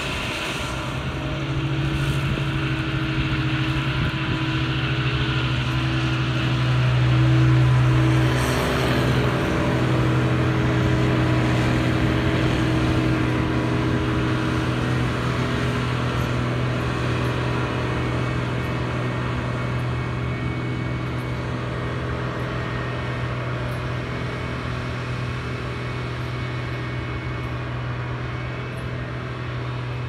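Challenger self-propelled windrower running steadily as it mows, its diesel engine giving a constant hum that swells briefly about a quarter of the way in and then eases slightly.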